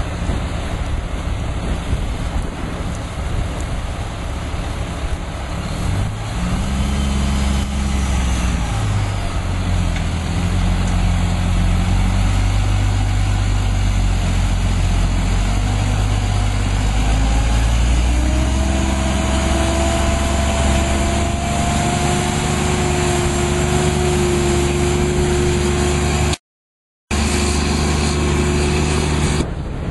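Heavy Mack truck's diesel engine running steadily. About two-thirds of the way in, a whine joins it and rises slowly in pitch. The sound cuts out for a moment near the end.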